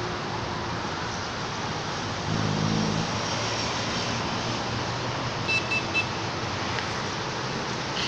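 Steady road traffic noise, with a low engine hum swelling briefly a little over two seconds in. About halfway through come three quick, short high beeps of the same pitch.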